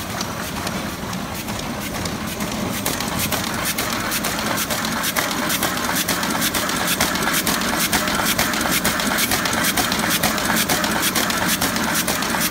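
Müller Martini Ventura book-sewing machine running, its sewing station making a rapid, even clatter of mechanical clicks over a steady hum. The clatter grows louder a few seconds in.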